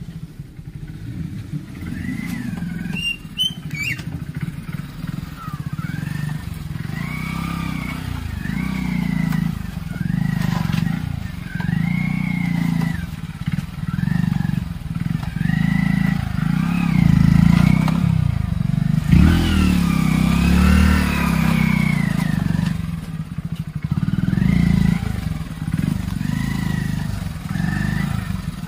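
Hero Splendor Plus motorcycle's small single-cylinder four-stroke engine revving up and dropping back over and over, about every one and a half to two seconds, as it is ridden over rocks and water. A single knock about two-thirds of the way through.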